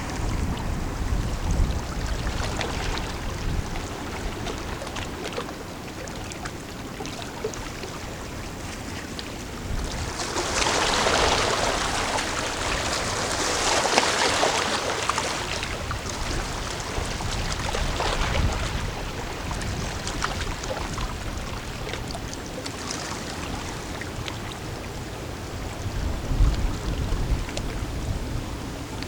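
River water washing and lapping against the shore, with wind gusting on the microphone. A louder rush of water comes about ten seconds in and lasts for around six seconds.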